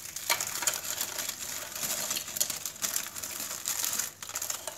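Plastic wrapper of a cocoa biscuit packet crinkling as the biscuits are pulled out and dropped into a plastic chopper bowl, with scattered small clicks and knocks.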